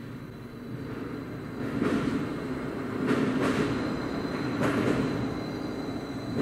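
Machinery of a mechanical multi-storey car park running. A low motor-and-gear rumble builds over the first two seconds and then holds, with several short metallic screeches about two, three and a half and five seconds in.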